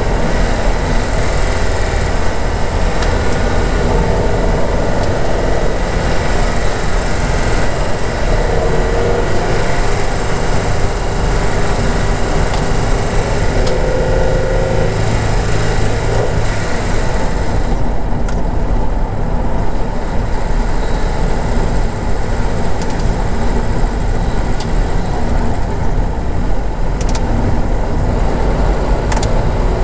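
Steady engine and tyre noise heard inside a vehicle driving a rough, muddy unpaved lane, with a few sharp knocks near the end as it goes over the ruts.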